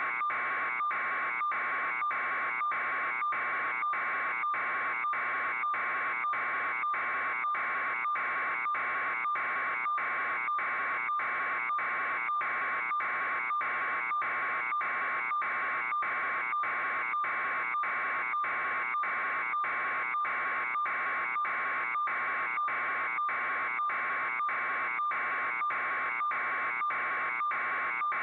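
Steady electronic buzz, breaking briefly about twice a second: interference on the audio channel of a raw satellite news feed rather than any sound from the scene.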